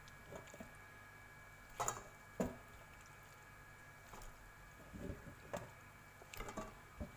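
Raw chicken pieces, wet from a milk soak, handled and set into a bowl: scattered soft squelches and a few sharper knocks against the bowl.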